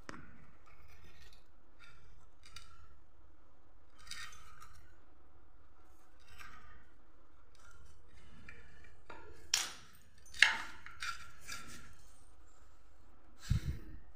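Hand tools working a wooden sandal sole: a run of short scraping strokes on the wood, then a few sharp clicks and knocks, the loudest about ten seconds in, and a knock with a dull thump near the end.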